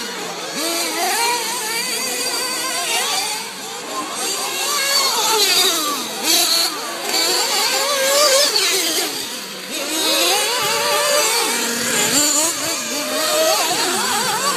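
Several nitro-powered RC truggy engines buzzing high and revving up and down, their overlapping pitches constantly rising and falling as the trucks race through the turns.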